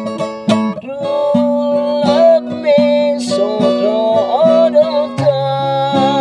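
A man singing with vibrato while strumming chords on an acoustic guitar with a capo; the guitar moves to a lower chord about five seconds in.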